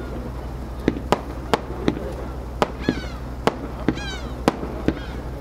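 Fireworks going off in quick succession: about nine sharp bangs, irregularly spaced a third of a second to a second apart.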